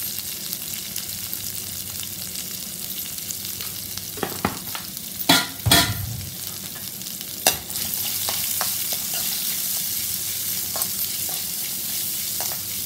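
Chopped onion, dals, dried red chillies and curry leaves frying in hot oil in a metal kadai, a steady sizzle. A few sharp knocks come near the middle, the loudest about six seconds in. From about eight seconds the sizzle grows louder as the mix is stirred with a spatula.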